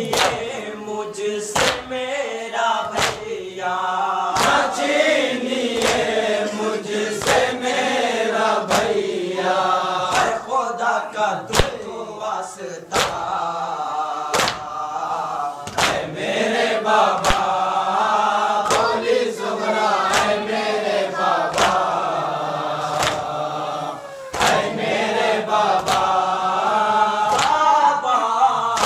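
Voices chanting a Muharram noha (lament) together in a slow, wavering melody. Sharp slaps of matam (chest-beating) keep time about once a second.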